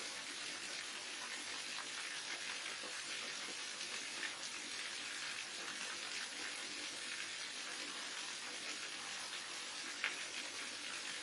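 Waterfall: water falling and splashing in a steady rush, with a brief sharper splash about ten seconds in.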